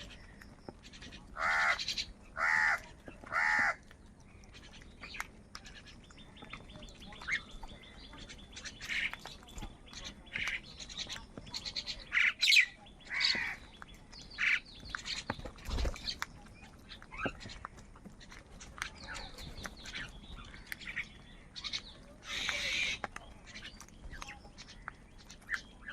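Crows cawing: three loud, harsh caws in quick succession about a second and a half in, then scattered shorter calls and chirps, and another drawn-out call a few seconds before the end.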